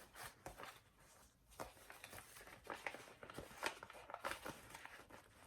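Faint, irregular rustling and crinkling of a cross-stitch pattern being handled and leafed through.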